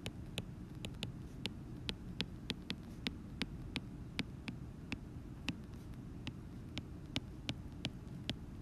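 Stylus tip tapping and sliding on a tablet's glass screen during handwriting: an irregular run of light clicks, about three a second, over a low steady hum.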